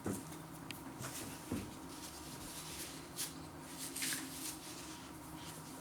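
Faint eating and handling sounds from someone tasting a flaky pastry pasty: a few soft clicks and rustles over a faint steady hum.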